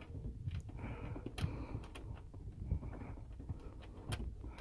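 Light clicks and taps of fingers handling a plastic third-brake-light housing, a few sharp clicks over a low rumble of handling noise.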